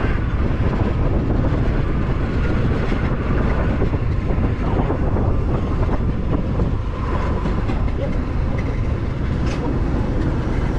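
A motor scooter ride heard from a helmet-mounted camera: a steady, loud low rumble of engine, road and wind noise on the microphone, unchanging throughout.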